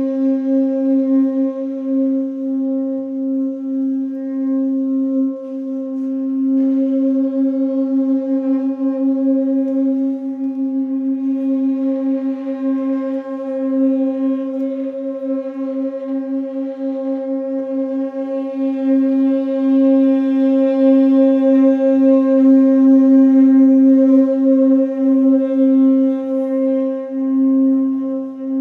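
Tenor saxophones holding one long drone note without a break, its overtones steady and its loudness wavering, growing louder past the middle.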